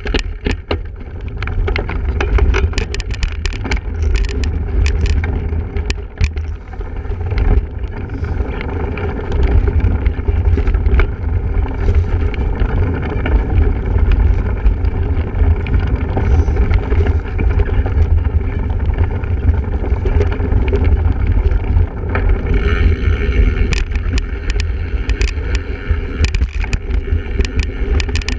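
Wind buffeting the microphone of a camera riding along on a single-speed cyclocross bike, with a heavy low rumble and many quick rattles and knocks as the bike rides over rough ground.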